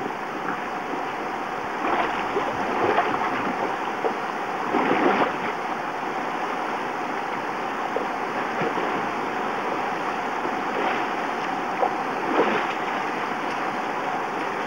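Rushing white water of a rocky stream's rapids, a steady rush with a few brief louder splashes as people wade through the current.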